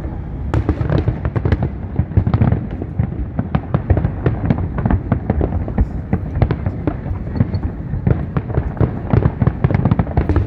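Large fireworks display going off continuously: a dense, rapid run of bangs and crackles over a steady low rumble.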